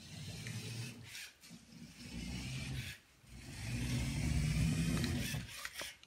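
Remote-controlled Lego Technic Jeep's electric drive motors and plastic gears whirring in three bursts as it drives and stops: a short run at the start, another about two seconds in, then a longer run of about two seconds.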